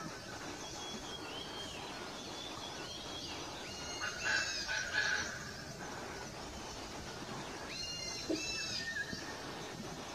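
Male koklass pheasant calling: a burst of loud, harsh crowing calls about four seconds in and another shorter burst near eight seconds, with small birds chirping in the background.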